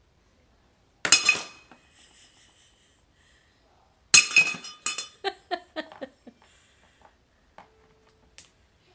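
Hard translucent toy blocks clinking against a tray: one clink about a second in, then about four seconds in a loud clatter as a block falls, followed by a run of clacks that come quicker and fainter as it bounces.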